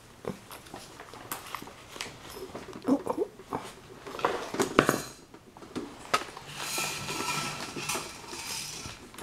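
Handling noise: cloth rustling with light knocks and clicks as the camera is picked up and moved. Near the end comes a whir lasting about two seconds, the camera's lens zooming in and out to refocus.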